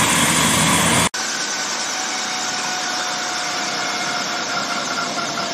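Bell 407GX helicopter's single turbine engine running on the ground with the rotor turning: a steady rushing noise with a faint thin whine. About a second in, the sound cuts abruptly to a quieter, thinner take of the same steady noise.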